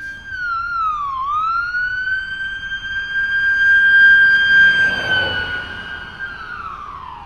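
A siren sounding one high, steady tone. About a second in it dips in pitch and climbs back, then holds, and near the end it winds down, falling in pitch.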